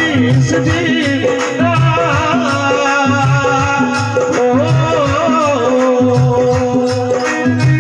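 Live Indian folk music through a PA: a man singing into a microphone over sustained keyboard notes and a steady, repeating drum rhythm.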